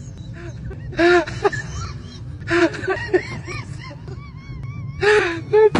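People laughing hard in short honking, wheezy bursts, with a squeaky high-pitched laugh wavering from about two-thirds of the way through, over the low rumble of a moving train.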